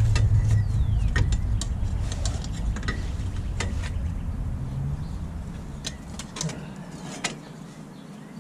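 Low engine rumble of a motor vehicle, fading away over the first five or six seconds, with scattered light clicks and metallic taps from hand work on a truck's front wheel hub.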